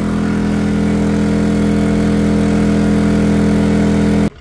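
EcoFlow dual-fuel portable generator running on LPG, holding a steady engine note while delivering about 1.6 kW of load. The sound cuts off abruptly near the end.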